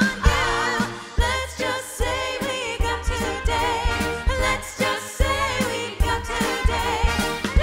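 A musical-theatre song: voices singing with wavering held notes over a band with a steady beat.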